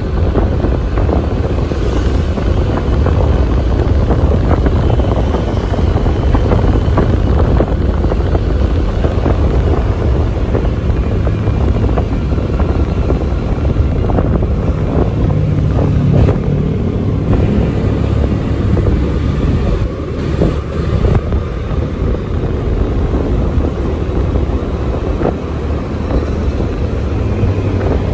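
Steady engine rumble and rushing wind of a moving motor vehicle, with wind noise heavy on the microphone; it eases off a little about two-thirds of the way through.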